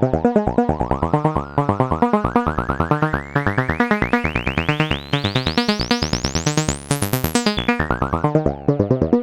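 Analog synthesizer sequence through a SetonixSynth Marsupial Eurorack filter: a fast run of short, rhythmic notes. The filter opens steadily, making the tone brighter and brighter until it peaks about seven seconds in, then closes back down to a dull tone near the end.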